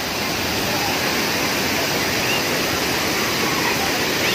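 Thirparappu waterfall pouring onto the rock shelf, a steady full rush of falling and splashing water.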